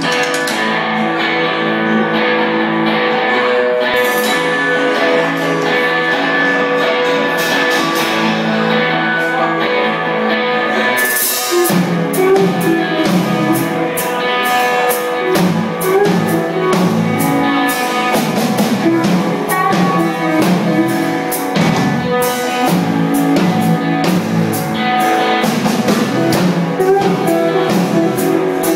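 Live rock band playing: sustained electric guitar at first, then about eleven seconds in the drum kit comes in and the full band plays together.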